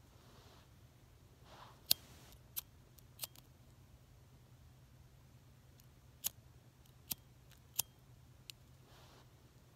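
A sheet of paper burning in the hand, giving about seven sharp, irregular crackling snaps over a faint hiss and soft rustling.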